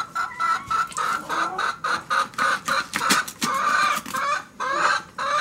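Chickens clucking, a steady run of short clucks a few times a second.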